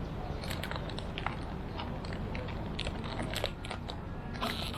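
Railway station ambience: a steady low rumble with scattered irregular clicks and crackles, a few of them bunched together near the end.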